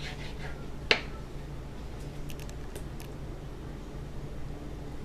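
A kitchen knife dicing raw chicken on a cutting board: one sharp knock of the blade on the board about a second in, then a few light taps.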